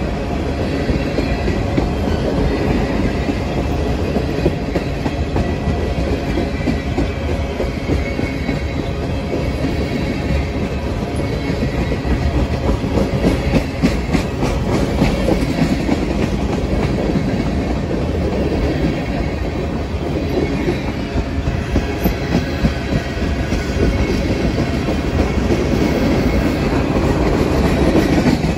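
Freight train of tank cars rolling past at close range: a steady rumble of steel wheels on rail, with wheels clacking over rail joints, most thickly around the middle.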